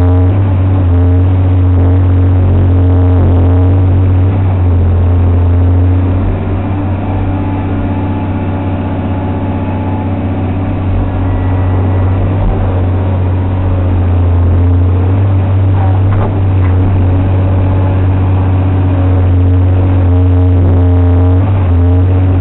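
Caterpillar 345 L excavator's diesel engine running steadily under load with a deep, constant drone, heard from inside the cab. The level drops a little for several seconds about a quarter of the way in, then comes back up.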